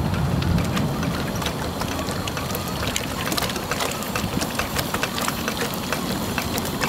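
Triple-transferator Stirling hot-air engine running: a rapid, uneven ticking over a steady low rumble.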